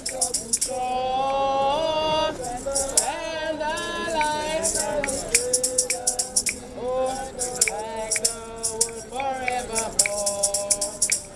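Voices singing a hymn unaccompanied except for a jingling hand percussion, such as a tambourine or shaker, keeping a rhythm in bursts.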